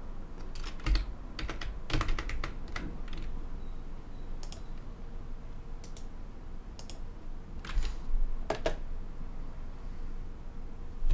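Scattered clicks of a computer keyboard and mouse: separate keystrokes and clicks, with a quick run of several about two seconds in.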